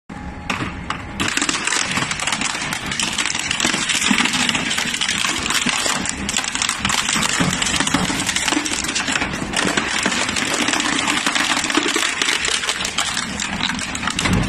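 Crusher machine grinding metal, giving a dense, continuous metallic clinking and rattling like many small metal pieces jingling together. It builds up about a second in and keeps up steadily.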